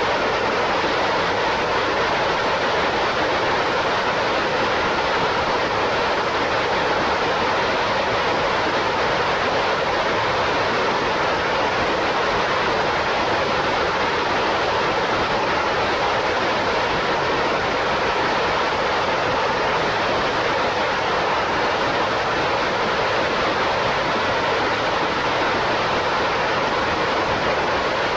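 Sirius hybrid rocket engine firing steadily during a static test: a loud, even rush of exhaust noise that holds the same level and character throughout, with no change in pitch.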